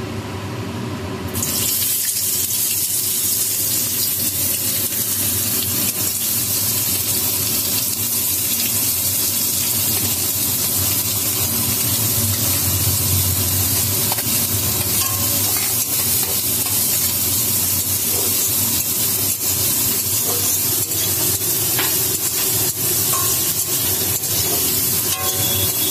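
Hot oil sizzling in an iron kadai on a gas stove, a steady loud hiss, with chopped onions frying in it and a metal spatula scraping the pan.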